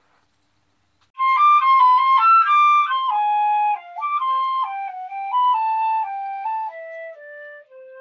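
About a second of near silence, then a short solo flute tune of quick stepped notes that wanders downward and settles on a low held note near the end.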